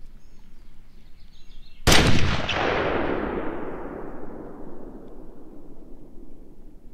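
A single shot from a scoped hunting rifle about two seconds in, sharp and loud, followed by a long echo that fades away over several seconds.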